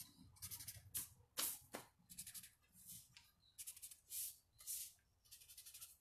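Felt-tip marker scratching on paper in quick short strokes, drawing a zigzag line: faint, a stroke about every half second with brief pauses between.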